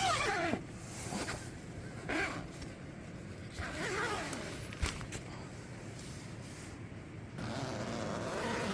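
A zipper pulled in several short strokes, each a quick falling rasp, with two sharp clicks about five seconds in.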